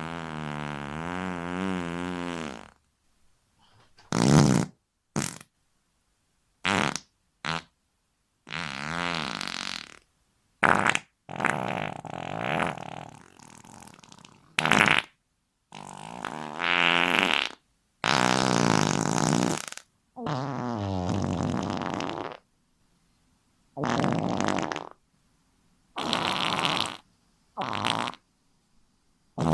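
A string of about fifteen fart sound effects, short blasts and longer wavering ones, each cut off cleanly into silence before the next.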